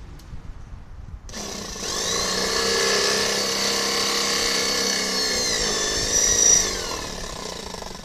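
Handheld electric drill starting up and boring out a large hole. The motor whine rises as it gets up to speed, runs steadily, dips in pitch under load about five seconds in, then winds down and stops near the end.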